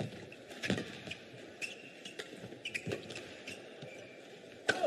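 Badminton rally: sharp racket strikes on the shuttlecock at irregular intervals, with short shoe squeaks on the court floor. The loudest strike comes near the end.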